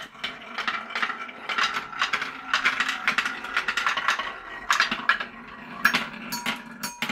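Wooden zigzag ramp toy: small pieces rolling down its sloping wooden slats, clicking and clattering rapidly for several seconds, with a few louder clacks near the end.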